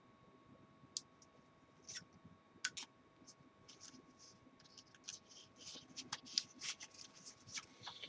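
Faint handling noise: scratchy rustles of a black nylon document holder being handled, with a single sharp click about a second in. The rustles come closer together over the last three seconds.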